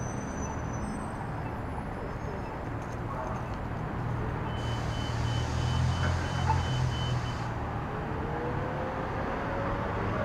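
City street traffic: a steady low rumble of engines and tyres. Midway, for about three seconds, a rapid electronic beeping of about four beeps a second is heard over a louder engine hum.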